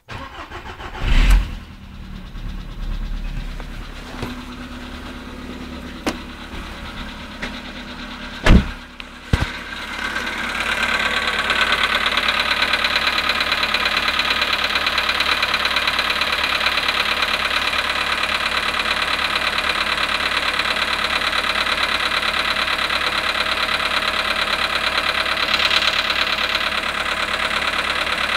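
Volkswagen Polo sedan engine cold-starting after a few loud thumps and clicks, catching about ten seconds in. It then settles into a steady idle with a knock, on a cold start at −5.5 °C after standing 18 hours.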